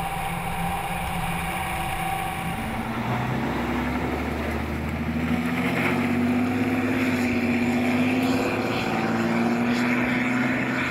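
Cummins turbo diesel engine of the TIV2 tornado intercept vehicle running under way, freshly overhauled with a new turbocharger. Its note climbs slowly in pitch from about three seconds in as the armoured truck accelerates.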